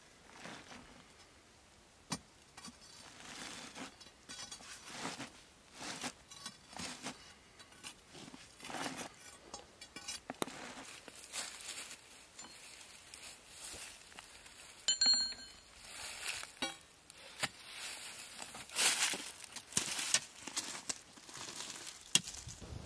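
Irregular knocks, scraping and gritty crunching of stone as a steel bar levers the two halves of a freshly split stone block apart. One sharp metal clink rings briefly about halfway through, and a few louder knocks come near the end.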